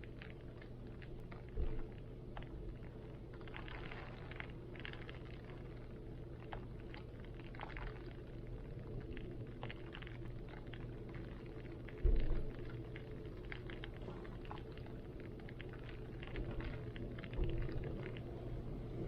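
Rain pattering in irregular drops over a steady low rumble of wind, with two brief heavy low thumps, the louder one about twelve seconds in.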